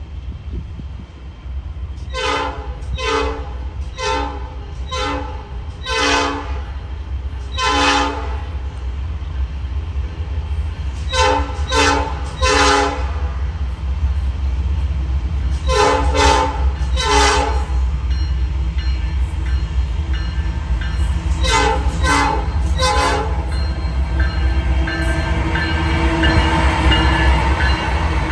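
A Ferromex AC44C6M diesel locomotive's Nathan P5 five-chime air horn sounds a rapid series of short chord blasts in four groups with pauses between. The locomotive's steady low diesel rumble runs underneath, and the noise of the moving train grows louder near the end.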